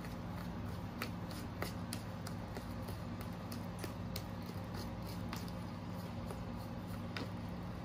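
Tint brush stirring and scraping bleach paste (bleach powder mixed with developer) around a plastic mixing bowl, with irregular small clicks and wet squishes as it works out clumps at the bottom, over a steady low hum.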